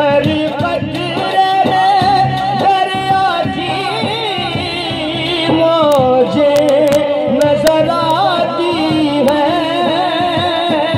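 Qawwali-style Sufi devotional music: a wordless, wavering sung melodic passage with instrumental accompaniment, between two lines of the kalam. Sharp percussive strikes come in during the second half.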